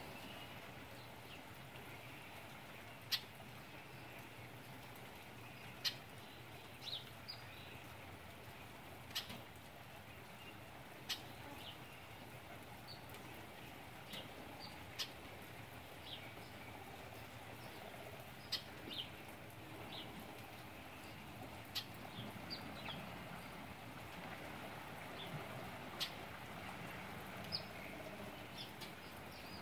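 Quiet outdoor ambience with scattered short, high bird chirps and a sharp tick every two to four seconds.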